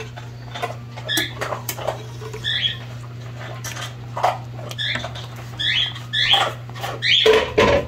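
A wooden spoon scraping and spreading thick, creamy chicken casserole mixture in a stainless steel roasting pan: irregular wet squelches and scrapes with many short, high squeaks, over a steady low hum.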